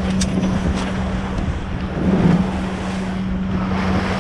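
Steady motor hum with wind rushing over the microphone, and a few faint sharp clicks.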